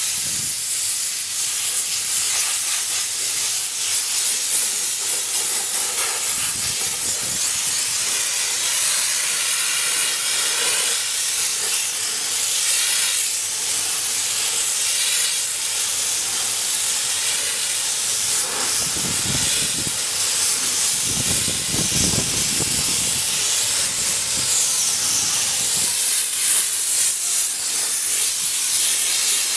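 Steam car-wash wand jetting steam in a steady, loud hiss, with a brief lower rumble about two-thirds of the way through.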